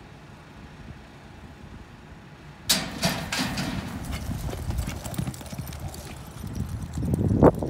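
A steel roping chute bangs open with a sharp clang about two and a half seconds in. Two horses then gallop out hard on dirt, their hoofbeats pounding fast and uneven, with a short, loud, rising call near the end.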